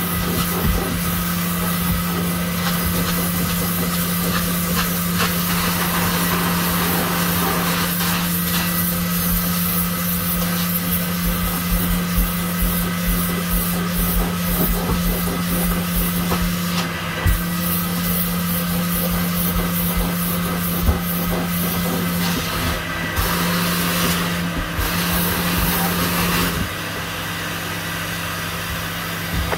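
Carpet cleaning machine running steadily: a constant low hum under a strong hiss, with a few scattered knocks, dropping slightly in level near the end.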